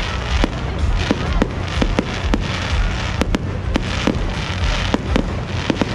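Aerial fireworks bursting overhead: an irregular run of sharp bangs and pops, about two or three a second, over a continuous rumble.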